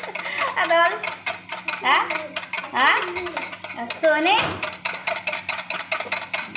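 Wire whisk beating warm milk in a glass bowl to froth it, its wires clicking fast against the glass, several strokes a second. A few short squeaky glides rise and fall in between.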